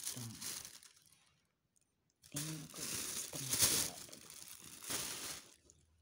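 Thin plastic grocery bags crinkling as they are handled and opened, in two spells: a short one at the start and a longer one of about three seconds after a pause in the middle.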